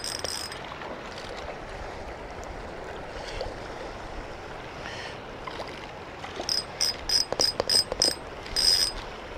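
Steady rush of river current and wind. Near the end, a spinning reel whirs in a series of short bursts as a hooked smallmouth bass is played in.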